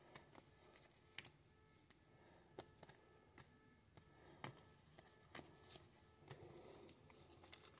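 Near silence, with a few faint, scattered clicks of glossy trading cards being slid and shuffled from hand to hand.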